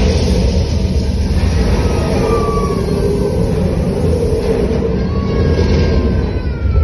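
Fire-breathing effect of an animatronic dragon: a loud, deep, continuous rumble with a hissing rush over it as flame and smoke burst out. A few high falling tones come in over the last couple of seconds.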